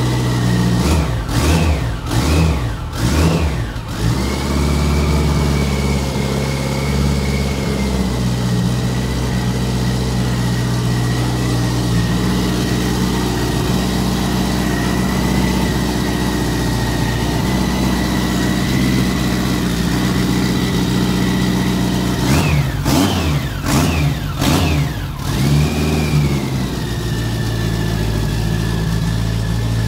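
1987 BMW K100 8-valve inline-four motorcycle engine, running on a freshly fitted aftermarket programmable engine management system: three quick throttle blips, then a steady idle, then another burst of quick revs about three-quarters of the way through before it settles back to idle.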